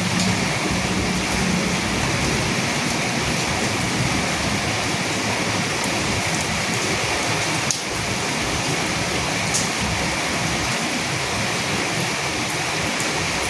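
Steady rain falling, an even hiss with scattered sharper drop ticks, and a brief click with a short dip in level about eight seconds in.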